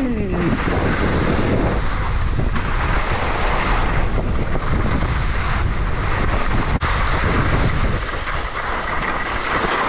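Wind rushing over a skier's camera microphone during a downhill run, mixed with the steady hiss of skis sliding over spring snow. A momentary break comes about seven seconds in.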